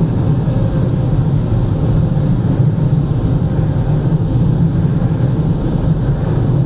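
Steady low rumble with a hiss over it, heard from inside the cabin of a stationary car that is running.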